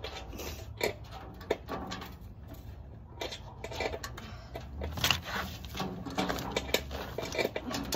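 Sheet-metal panels of a barbecue pit being handled and fitted together: a run of irregular light knocks and clanks, the sharpest about a second in, at a second and a half, and around five and six and a half seconds in.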